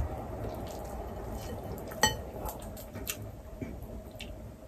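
Eating sounds from a meal taken by hand: a sharp, ringing clink against a ceramic dish about two seconds in, followed by a few lighter clicks and taps of food and fingers on plates and bowls.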